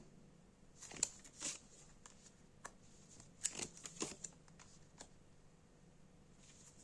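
Tarot cards being handled and laid out: a few faint, irregular flicks and taps of card on card and on the table.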